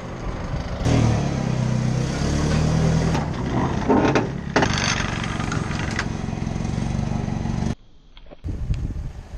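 A vehicle engine runs loud from about a second in, its pitch rising and falling as it revs. The sound cuts off abruptly near the end.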